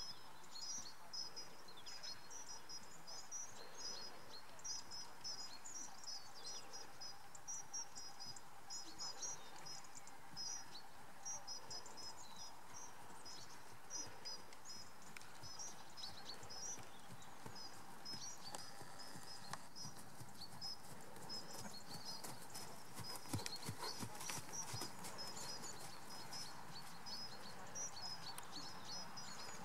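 A horse's soft hoofbeats on a sand arena surface, trotting and then walking, with rapid high-pitched chirping repeating throughout.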